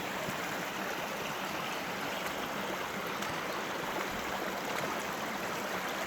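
Stream water running steadily over stones, a constant babbling rush with fine trickling detail.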